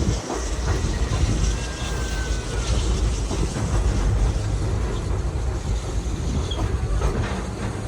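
Vintage railway carriage running along the track: a steady low rumble of wheels on rails, with a faint brief squeal about two seconds in.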